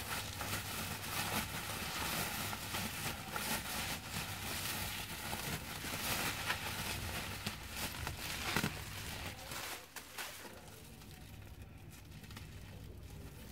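Plastic bubble wrap crinkling and rustling as it is handled and pulled open, with many small crackles. It dies down about ten seconds in.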